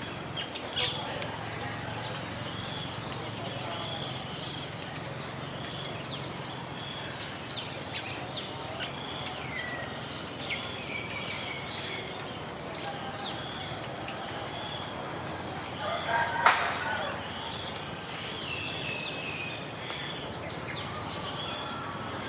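Rural village ambience with many small birds chirping and whistling throughout, and a rooster crowing once, loudest, about three-quarters of the way through.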